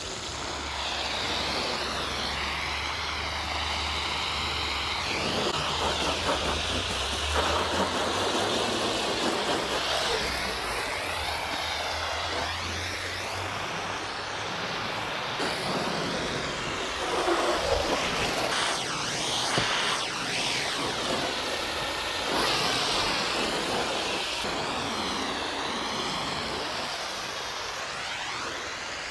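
Water from a garden hose spray nozzle hitting a car's roof, windows and windshield during a rinse: a steady hiss and splatter that shifts as the spray moves across the panels and glass.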